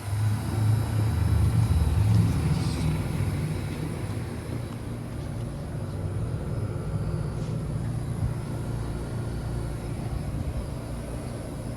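Outdoor central air conditioner condenser running: a steady low compressor hum under the whir of the condenser fan, a little louder in the first couple of seconds and then settling.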